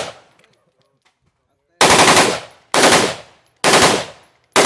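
Rapid-fire gunshots in short bursts of several shots each. After a pause of nearly two seconds, four bursts begin about a second apart.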